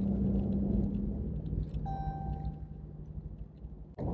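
Steady engine hum and tyre road noise heard from inside a pickup truck's cab while driving, the engine note dropping slightly in pitch a little past a second in. A short high tone sounds about halfway, and the sound breaks off abruptly near the end.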